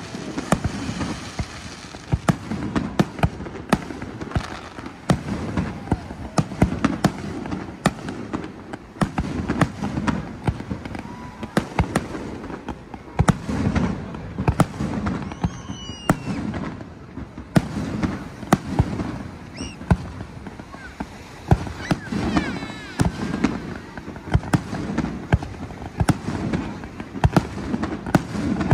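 Fireworks display: a rapid series of sharp bangs and pops from launching and bursting shells, often several a second, over the steady chatter of a crowd of onlookers.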